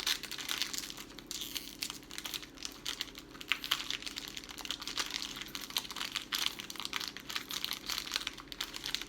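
Plastic snack wrapper of Sky Flakes chocolate crackers crinkling, with irregular crackles as it is handled and opened.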